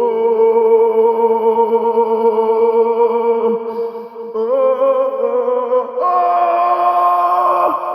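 Music of long, sustained vocal notes in several layers, held steady and moving to new notes about four and a half seconds in and again at six seconds.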